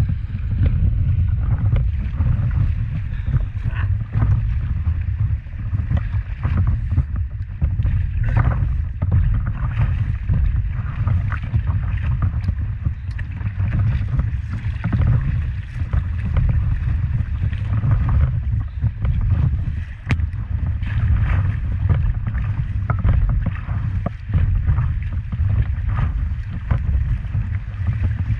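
River water rushing and splashing against the nose of a paddleboard running through rapids, over a steady low rumble of wind on the microphone.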